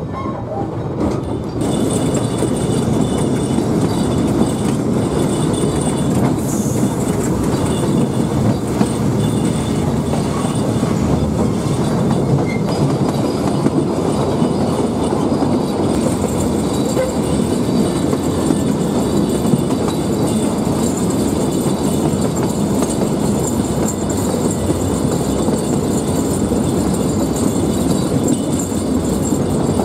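Puffing Billy narrow-gauge steam train under way: a steady rumble and clatter of the wooden carriages running over the rails, with a faint high squeal of wheels on the curve above it. The sound steps up louder about two seconds in.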